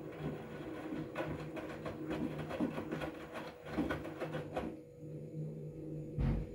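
Front-loading washing machine tumbling a wet load of towels in water: a steady motor hum with the laundry sloshing and knocking as the drum turns. About three-quarters through the tumbling stops and it goes quieter, and a short low thud comes near the end.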